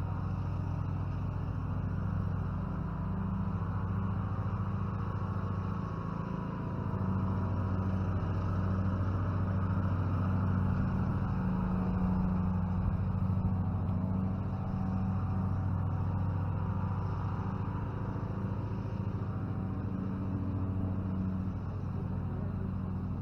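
A motor running steadily, a low hum with a slight rise and fall.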